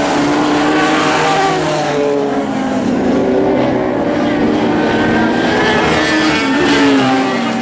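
Several lightning sprint car engines running together on a dirt oval, their pitches rising and falling as the cars speed up and back off.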